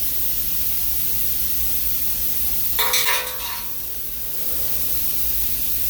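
Steady hum and hiss of machine-shop background, with one brief ringing metallic scrape about three seconds in as a Jergens ball lock is worked into the mill fixture to be tightened down.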